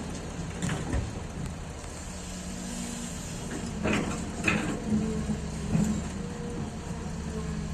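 XCMG 210C excavator running steadily while loading, its engine drone carrying through, with a few sharp metallic clanks, the loudest about four seconds in.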